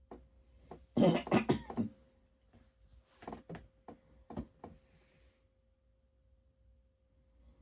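A man coughing in a short, loud burst of several quick coughs about a second in, followed by a few fainter throat sounds. A faint steady tone hums underneath.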